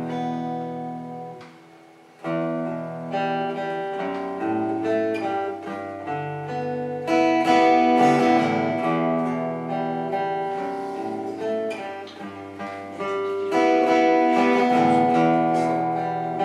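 Acoustic guitar played solo, chords strummed and left to ring, changing every second or so. The sound dies away just before two seconds in, then picks up again with a fresh strum.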